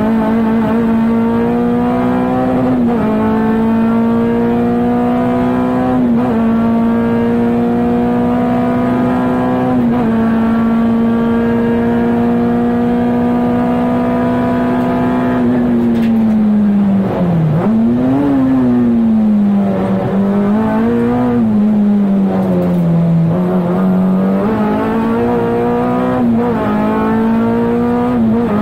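Honda K24 four-cylinder engine of a racing Integra Type R, heard from inside the cabin, held at high revs with small brief dips in pitch every few seconds. About sixteen seconds in the revs fall sharply, rise and fall twice, then climb back to high revs near the end.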